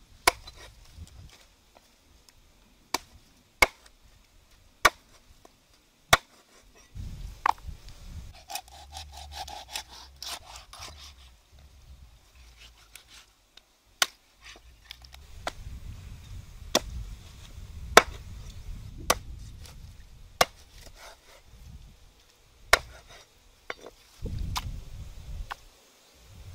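Cleaver chopping a raw chicken on a wooden chopping block: single sharp chops at irregular intervals, some a second or less apart, others separated by pauses of several seconds.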